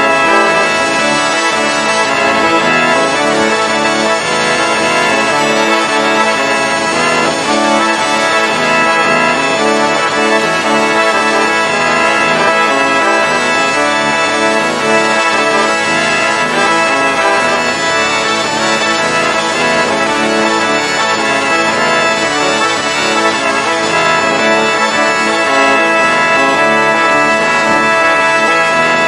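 Bagpipes playing a melody over steady, unbroken drones, the reedy chanter notes changing every fraction of a second to a second or so.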